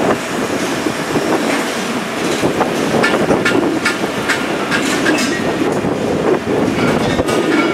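A train running on the rails: a steady rumble with a run of sharp wheel clicks over the rail joints.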